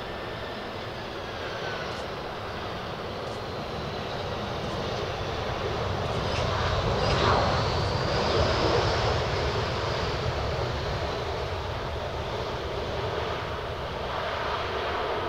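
Airbus A319 jet's engines on the landing rollout: a steady jet rumble that swells to its loudest about seven to nine seconds in, with a high whine that rises and then falls, then eases as the aircraft rolls away.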